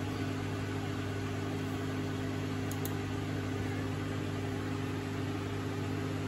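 Steady low room hum made of several even tones, with two faint clicks close together about three seconds in.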